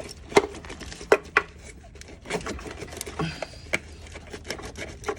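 Irregular sharp clicks and knocks of plastic harness connectors and clips rattling and catching against the engine as a wiring harness is tugged out of the engine bay.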